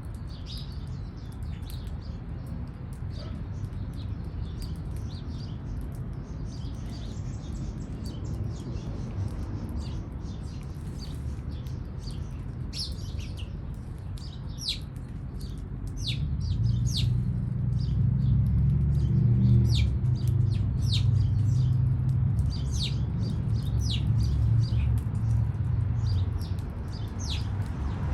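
Small birds chirping repeatedly in short, high calls, more often in the second half. A louder low rumble comes in about halfway through and lasts around ten seconds.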